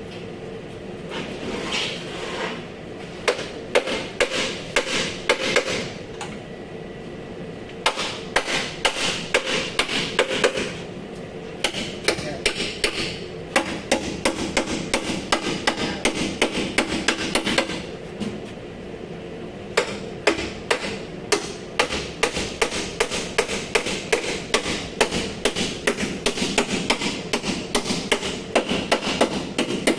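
Hammer blows on sheet metal, about three a second in several runs with short pauses, as the Land Cruiser's accident-damaged body panel is beaten back into shape.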